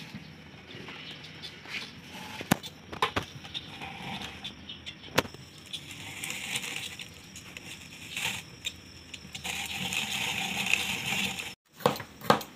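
Plastic hand-cranked rotary drum grater shredding vegetables, a grinding rasp with scattered clicks and knocks as the crank turns and the drum is handled. After a sudden break near the end, a knife chops on a plastic cutting board a few times.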